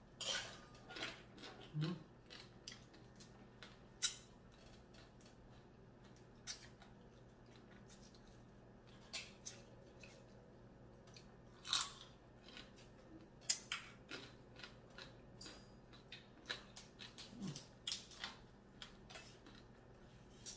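Close-up eating sounds of someone working through blue crab and shrimp: irregular sharp cracks of shell being bitten and broken, with quieter chewing between. The loudest cracks come about four seconds in and again around twelve and thirteen seconds in.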